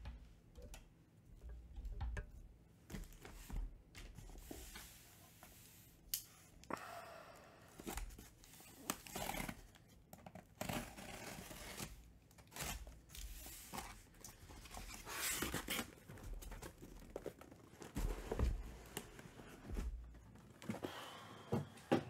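Cardboard shipping case being slit open with a blade and its flaps torn away: a string of rasping cuts and tears in the cardboard, with dull knocks as the case and boxes inside are handled.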